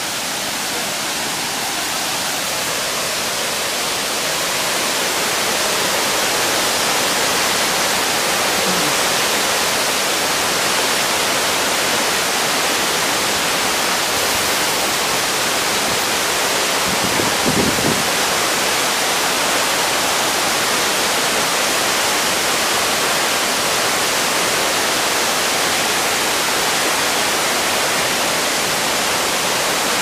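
Victoria Falls: the steady rush of a huge waterfall, swelling over the first few seconds as the falls come near, with one brief low thump just past the middle.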